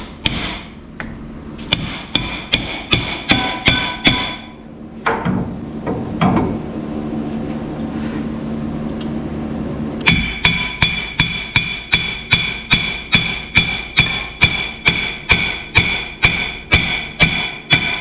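Hammer blows on metal that rings after each strike. There is a quick run of about six blows, a pause with scraping and rattling, and then steady hammering at about two and a half blows a second.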